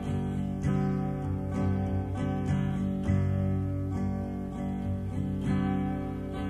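Acoustic guitar strumming chords in a steady rhythm, with no singing: an instrumental passage of a solo folk-style song.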